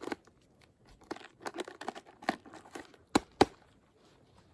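Dry birch bark crinkling and crackling as it is handled and pressed into a pack, a string of irregular crackles with two sharp snaps a little over three seconds in.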